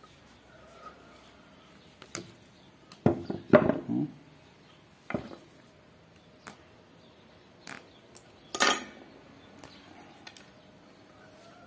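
Small tools and parts being handled on a work surface: scattered clicks and knocks, with a loud clatter about three seconds in and another sharp knock near nine seconds.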